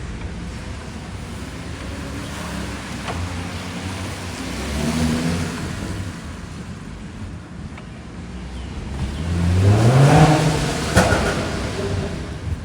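Audi A7 3.0 V6 revved while standing: a short blip about five seconds in, then a longer rising rev near ten seconds. As the revs drop, a single sharp exhaust pop comes about eleven seconds in, an overrun crackle.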